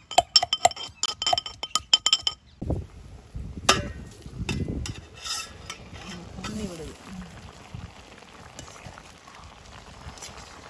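A quick run of sharp metallic clinks, each ringing briefly, for about the first two seconds, then quieter low knocks and rustling.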